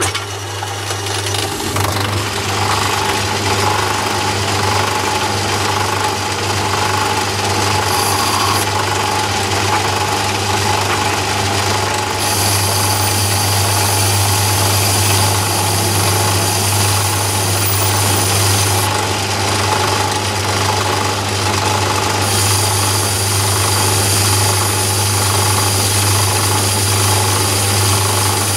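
Myford ML7 lathe starting up and running steadily with a low motor hum while a light skim cut is taken along a test bar. A higher hiss joins the hum about twelve seconds in and again later. This is a test cut made after adjusting the bed's jacking screw, to check whether the turning taper has gone.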